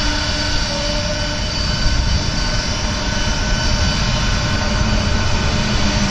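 Boeing 747-400 freighter's four jet engines at takeoff power as it rolls down the runway: a loud, steady roar with several steady whining tones over it.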